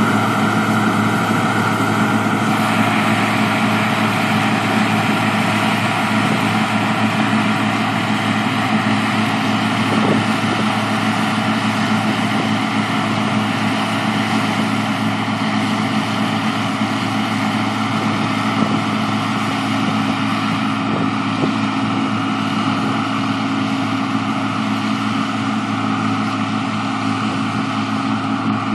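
Massey Ferguson 27 combine harvester running steadily, its diesel engine and machinery making a constant drone with a few faint knocks.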